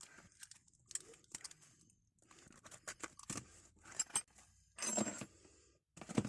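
Metal hand tools clinking and knocking together as they are picked up and set down, with a brief rustling noise about five seconds in.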